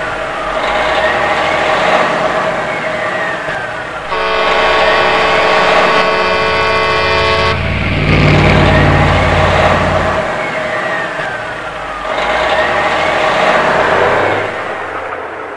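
Road traffic noise, with a vehicle horn held for about three and a half seconds near the middle.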